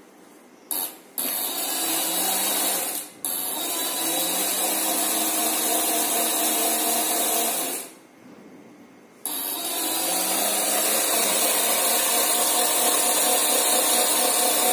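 Kid's electric scooter's small DC motor driving the rear wheel through its chain, powered straight from the charging adapter, its pitch rising as it spins up. It starts about a second in, cuts out briefly twice and then runs steadily. It is running normally, a sign that the scooter itself is sound and the fault lies in its dead 12 V battery.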